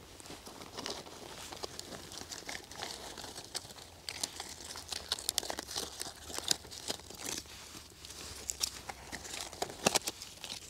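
A dry tinder nest being pulled apart and fluffed by hand, its fibres crinkling and crackling, with sharp crackles growing busier from about four seconds in and the loudest one near the end.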